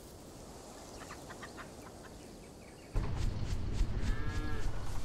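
Quiet farmyard ambience, then about three seconds in a tractor engine starts and runs with a loud low rumble. A cow moos once over the engine.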